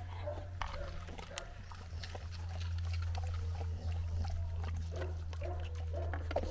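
Dog making short, soft sounds: faint whines and grunts, with a few small clicks, over a steady low hum.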